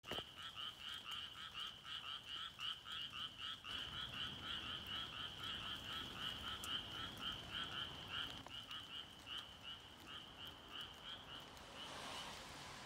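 Frogs croaking in a fast, even series, about three calls a second. The calls stop shortly before the end.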